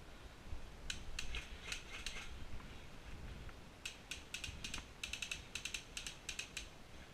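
A run of sharp mechanical clicks from airsoft gear, in two bursts: a handful about a second in, then a denser string from about four seconds in to near the end.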